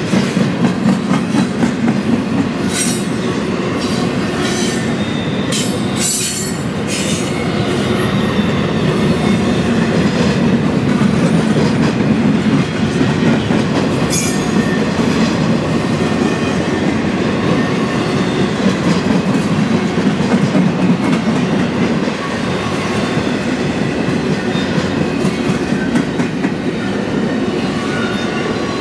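Double-stack intermodal freight cars rolling past at close range: a steady rumble of steel wheels on the rails, with short clacks now and then as the wheels cross rail joints.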